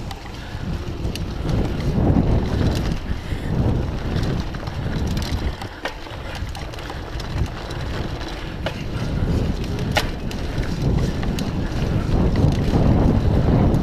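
Mountain bike rolling over a dirt trail: a steady low rumble of tyres and wind buffeting the microphone, with scattered sharp clicks and rattles from the bike, the loudest about ten seconds in.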